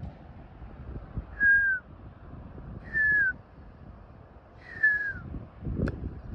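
Three clear whistled notes, each sliding down in pitch, about one and a half to two seconds apart, over a low rumbling noise. A single sharp click comes near the end.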